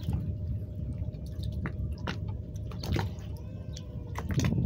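Harbour water lapping against a moored boat's hull, with small slaps and drips scattered through it.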